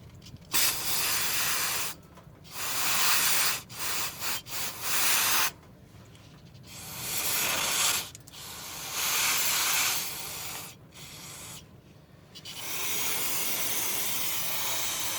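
Aerosol brake cleaner sprayed in a series of hissing bursts onto the pickup's brake parts, the last spray held for about three seconds.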